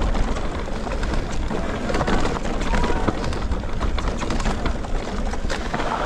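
Mountain bike riding down a rough forest trail, heard from a GoPro mounted on the bike or rider: wind buffeting the microphone over steady rumbling tyre noise, with the bike clattering and rattling on roots and rocks.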